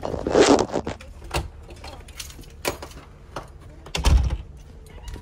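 Handling noises: a short rustle, then a few separate sharp clicks and knocks, and a heavier thump about four seconds in.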